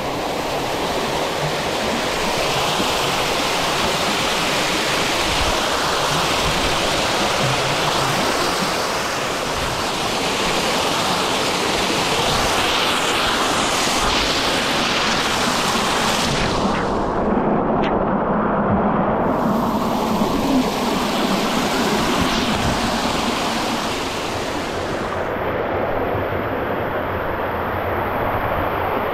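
Mountain stream running over rocks: a steady, loud rush of water.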